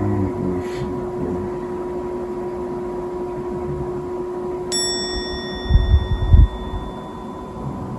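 A single bright bell-like ding about halfway through that rings on and fades over about three seconds. About a second after it come a few loud low thuds. A steady hum runs underneath.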